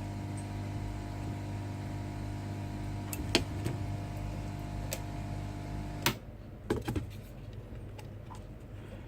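Small clicks and taps of metal tweezers prying at a phone's plastic and metal parts, over a steady low hum that cuts off with a sharp click about six seconds in.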